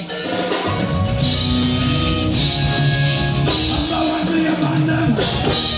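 Loud band music with drums and held melodic notes that slide up and down in pitch, starting in just as a choppier rhythmic passage stops.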